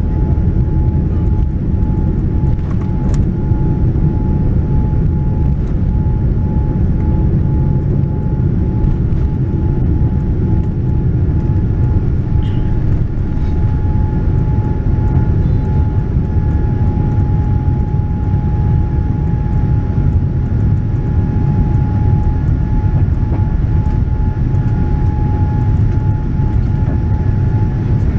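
Cabin sound of a Boeing 787-9 on its takeoff roll and lift-off, heard from a window seat over the wing: a loud, steady low rumble with a steady whine from the Rolls-Royce Trent 1000 engines at takeoff thrust.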